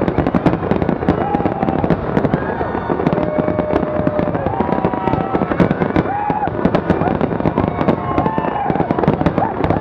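Aerial fireworks shells bursting in a dense, continuous barrage of rapid bangs and crackles.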